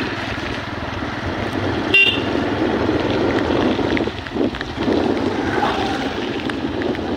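Motorbike riding along with its engine running and air rushing past, and a brief horn toot about two seconds in.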